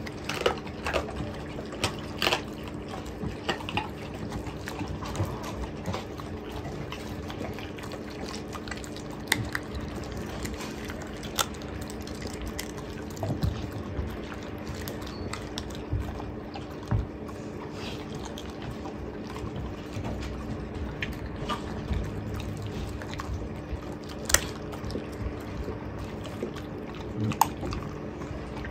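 Mastiff chewing raw chicken: wet smacking and licking broken by irregular sharp crunches, over a steady low hum.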